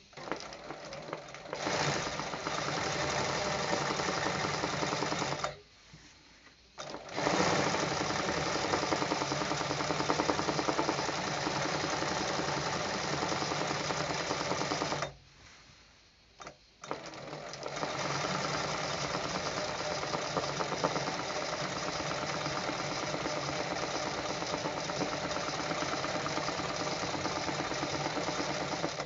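Sewing machine stitching free-motion (hand-guided) embroidery, running fast in long runs. It stops briefly about five seconds in and again about fifteen seconds in, with a short burst of stitches just before it starts again.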